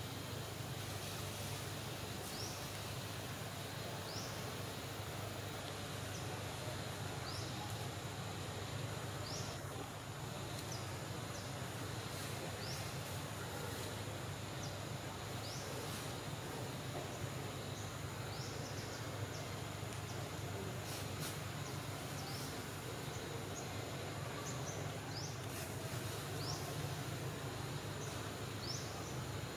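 Outdoor forest ambience: a steady hiss and low hum, with a short, high, rising chirp repeating every second or two.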